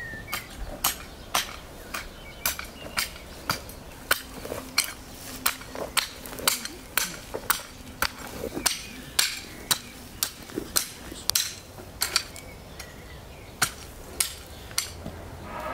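Garden hoe chopping into stony soil, its blade striking clods and pebbles about twice a second in a steady working rhythm.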